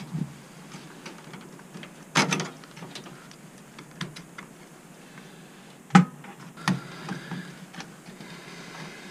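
Scattered clicks and knocks of plastic power connectors and cables being handled and unplugged inside an open PC case. The loudest knocks come about two seconds in and about six seconds in, with lighter ticks between.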